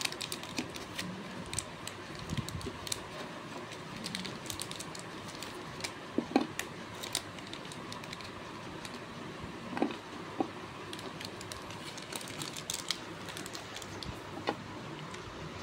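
Chocolate bar wrapper crinkling, with scattered small clicks and taps as squares of milk chocolate are handled and broken on a tabletop, and a few sharper snaps.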